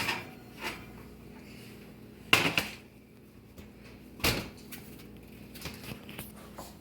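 Kitchen clatter: two sharp clunks about two seconds apart, with a few fainter clicks.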